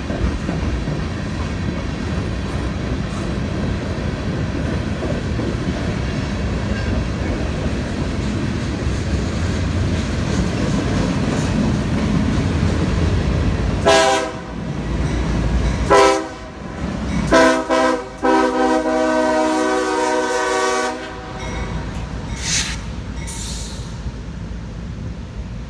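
Diesel freight train rolling with a steady low rumble, then the locomotive's multi-note air horn sounds four blasts: two short, a slightly longer one, and a long one held for about three seconds. The rumble fades after the horn.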